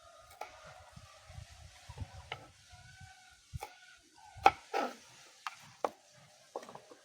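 Irregular knocks of a knife chopping matoke peelings on a wooden surface, about eight sharp strikes, the loudest about four and a half seconds in.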